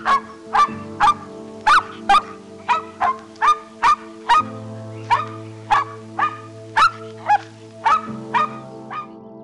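A dog barking over and over, about two barks a second, with background music underneath.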